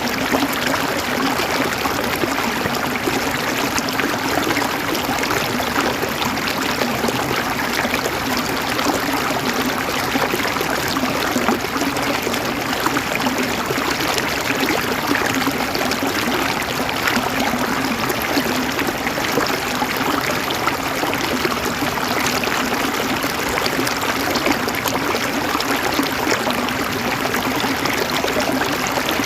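A river's water running and gurgling steadily, an even rush without breaks.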